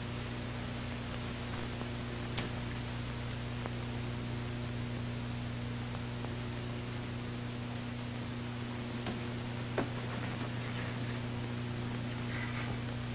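Steady mains hum and hiss on an old film soundtrack, with a couple of faint clicks.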